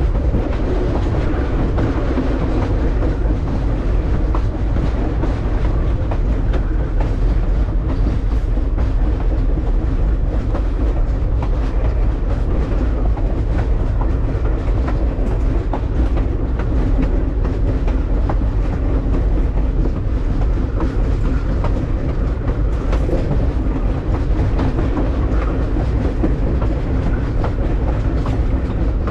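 Passenger railroad car rolling along the track: a steady rumble of wheels on rail with scattered clicks.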